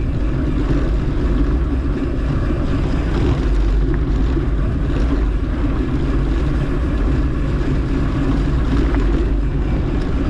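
Steady low rumble of a mountain bike in motion: wind buffeting the microphone and tyres rolling over the dirt trail.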